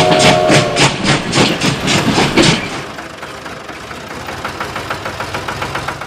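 Toy train running along plastic track with a fast, even chugging rhythm that fades away over the second half as the train moves off.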